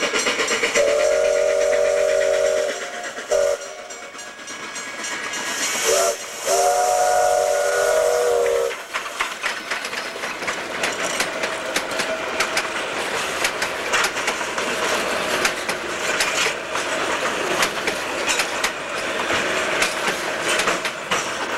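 Durango & Silverton narrow-gauge K-28 steam locomotive blowing its chime whistle, several tones at once: a long blast, a brief toot, another brief toot, then a second long blast, over hissing steam. After that the train rolls past, its wheels clicking and clattering over the rail joints.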